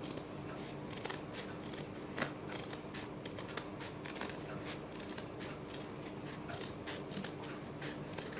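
Large tailor's scissors cutting through a doubled strip of stiff buckram: a steady run of short, sharp snips, a few each second.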